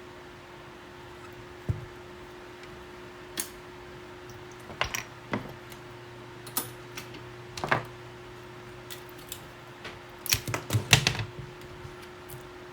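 Scattered light clicks and taps of small hard objects being handled, with a quick cluster of them about ten seconds in, over a steady faint hum.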